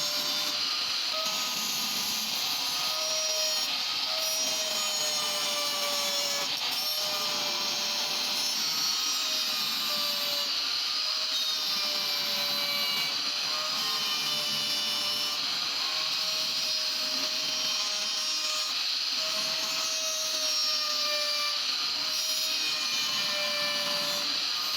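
Wood router fitted with a flush trim bit, running and cutting wood. Its steady motor whine sags slightly in pitch and recovers every second or two as the bit takes load.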